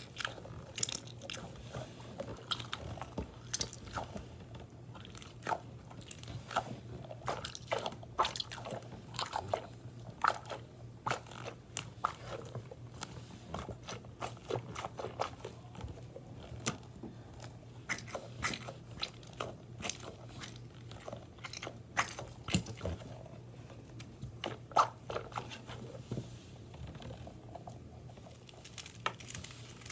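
Fidget toys being squeezed and handled close to the microphone, making irregular crunchy crackles and clicks throughout.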